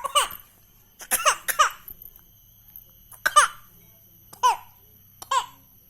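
A baby coughing: about seven short coughs, each starting sharply and ending in a high, squeaky voiced note that falls in pitch. The coughs come singly or in quick clusters, with pauses of a second or more between them.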